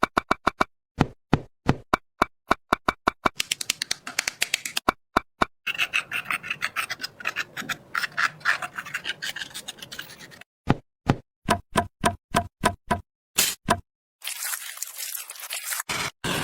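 Small hand tools working miniature construction materials: a quick, even series of sharp taps, some with a short ring, then a long stretch of scraping from about three seconds in. Near the end come more taps and a shorter scrape, with abrupt cuts between sections.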